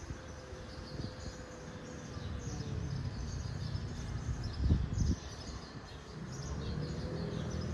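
Small birds chirping and twittering repeatedly over a low steady background rumble. A brief low thump about five seconds in is the loudest moment.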